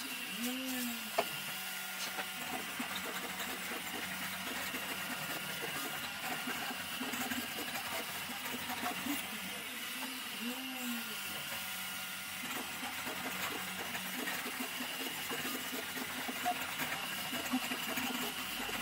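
A 3D printer running: a steady fan hiss with a high steady whine, and its stepper motors giving short rising-and-falling whines about half a second in and again about ten seconds in.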